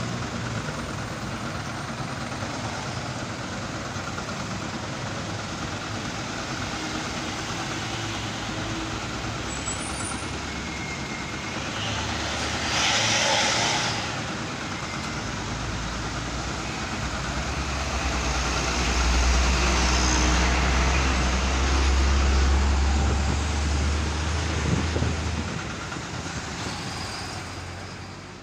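Heavy road traffic with trucks and a bus running close by: a steady rush of engines and tyres, a short burst of hiss about halfway through, and a deep engine rumble that swells in the second half.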